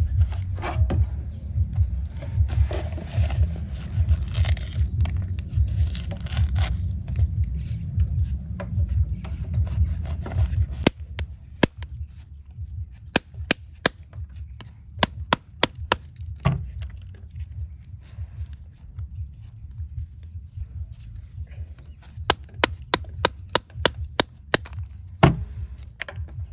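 A dense, uneven low rumble for about the first ten seconds, then a long run of sharp, separate knocks and snaps, some coming in quick clusters.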